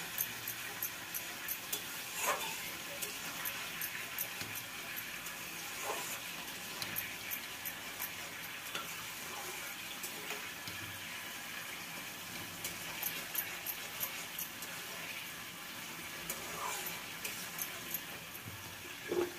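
A tadka of mustard seeds and ajwain sizzling in a pan: a steady hiss with fine crackles. A few soft knocks of a knife against a steel plate as dhokla is cut.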